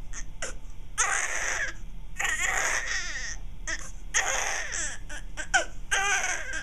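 Newborn baby crying: about four long wails with shorter cries between them.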